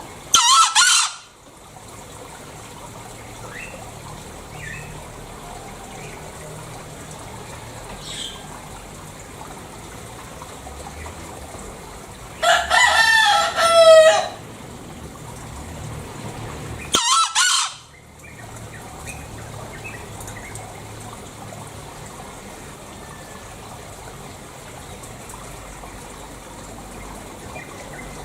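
Green junglefowl crowing: a short hoarse call about a second in, a longer call around the middle with a falling end, and another short call soon after. Steady background hiss and faint distant bird chirps are heard between the calls.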